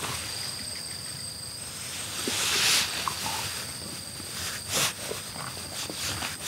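Outdoor ambience of steady high-pitched insect calls, with a brief rustle about two and a half seconds in and a sharp click near five seconds.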